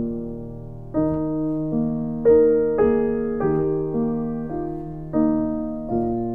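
Gentle background piano music: slow notes and chords, each struck and then fading, with a new one about every half second to a second.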